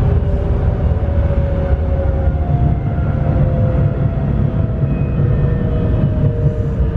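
Electric tram running on street track, heard from on board: a steady low rumble of wheels on rails, with the whine of the traction motors falling slowly in pitch as the tram slows for its stop.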